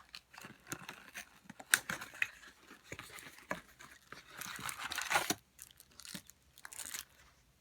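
Trading-card box packaging being torn open and handled by hand: tearing and crinkling with scattered sharp clicks, and a longer rustle about five seconds in.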